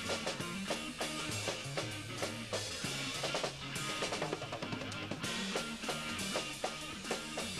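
Live band playing, with a drum kit (bass drum, snare and cymbals) beating out a dense, steady rhythm over held bass notes.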